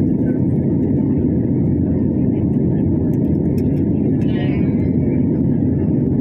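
Steady cabin noise of a jet airliner in flight, a deep even rush of engine and airflow noise heard from a window seat.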